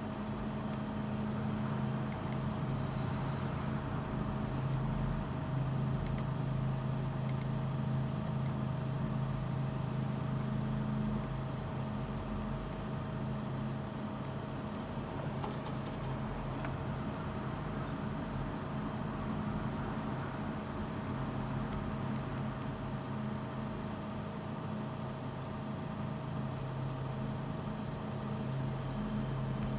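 Steady low hum of a fan or motor running, with a few faint ticks about halfway through.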